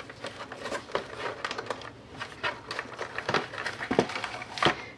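Cardboard packaging being handled and pulled out of a doll box: rustling and scraping, with a few sharp knocks in the second half.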